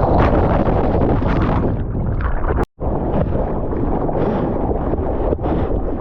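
Ocean water rushing and splashing around the camera, with heavy wind buffeting the microphone. The sound cuts out completely for a split second a little under halfway through.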